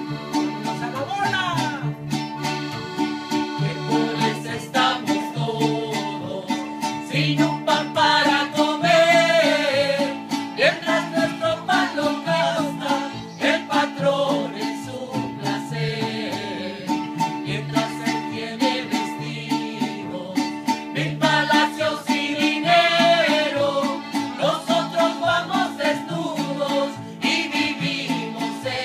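Live acoustic folk band playing: strummed acoustic guitars and accordion, with voices singing a melody in two stretches.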